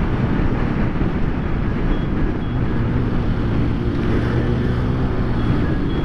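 Honda CG 160 Titan's single-cylinder four-stroke engine running steadily at road speed, around 80 km/h, mixed with wind and road noise. The engine's steady hum stands out more clearly in the middle of the stretch.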